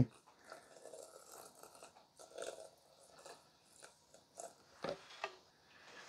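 A thin stream of water poured onto coarse coffee grounds in a cold brew maker's fine-mesh steeping basket, with faint scattered crackles as the grounds soak up the water and a few light clicks.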